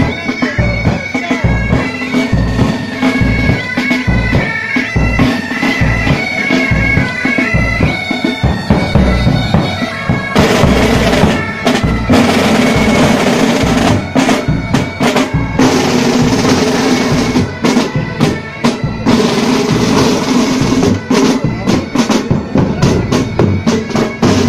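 Military pipe band playing a march: bagpipes carrying the melody over a regular bass drum beat and side drums. About ten seconds in, the snare drums grow louder and denser, rattling over the pipes.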